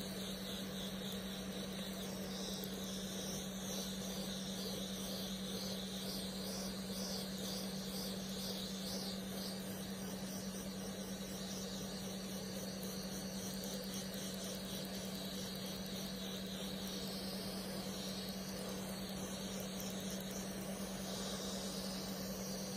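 Picosecond laser firing repeatedly as its handpiece passes over the skin: a fast run of snapping ticks, over a steady low hum.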